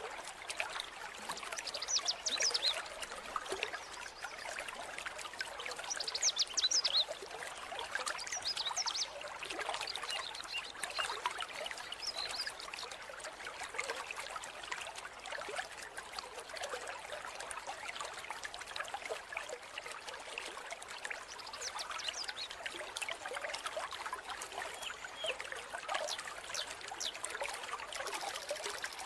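Running mountain-stream water trickling and splashing steadily, with many small quick splashes.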